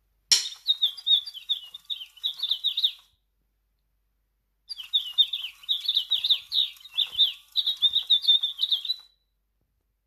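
Sound-activated toy eastern rosella playing recorded bird chirps through its small speaker. It switches on with a click, chirps rapidly for about three seconds, pauses, then chirps again for about four seconds before cutting off.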